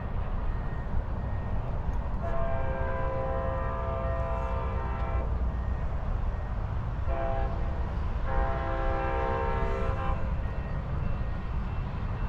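Multi-tone horn of an approaching Amtrak Pacific Surfliner train, sounding three blasts: a long one, a short one, then another long one. A steady low rumble runs underneath.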